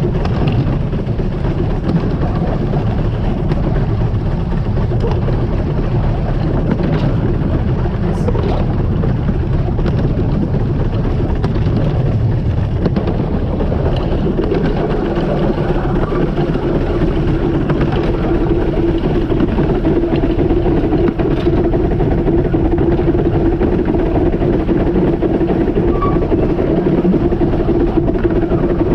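15-inch gauge steam locomotive River Irt running along the Ravenglass and Eskdale Railway, heard from the train as a steady, loud running noise. About halfway through, a steady droning tone comes in and holds.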